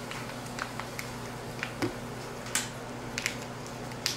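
Scattered crinkles and small clicks of a foil-lined plastic seed pouch as fingers pry open its torn top edge, about half a dozen separate crackles with short gaps between.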